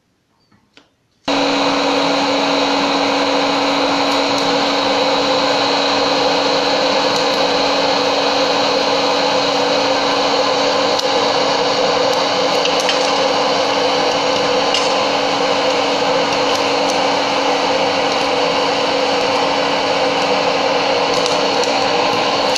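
Hot-air popcorn maker switched on about a second in: its blower fan starts at once and runs steadily with a constant hum under a loud rush of hot air. A few faint ticks come through later, as the kernels begin to pop.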